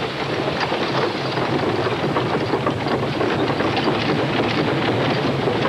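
Rockets strapped to the rim of the Great Panjandrum, a rocket-propelled wheel, firing during a trial run: a loud, steady rushing noise full of rapid crackles.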